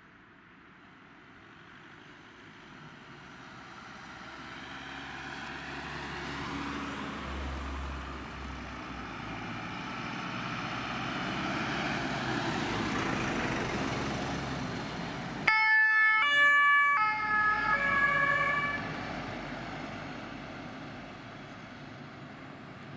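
Heavy trucks approach and drive past, their engine and tyre noise rising slowly and then fading. About two-thirds of the way through, a German two-tone emergency horn (Martinhorn) on one of the passing Red Cross vehicles sounds a short, loud burst, stepping back and forth between two notes for about three seconds.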